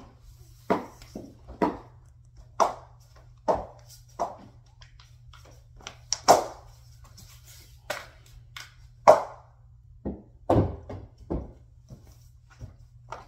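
A child jumping and landing on a hard floor: a string of uneven thumps, roughly one a second, with the heaviest thuds about ten to eleven seconds in.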